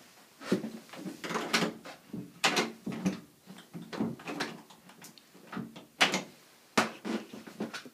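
A door knob and rim-mounted deadlatch being turned and worked by hand, giving a series of sharp metal clicks and clunks, the loudest about six and seven seconds in.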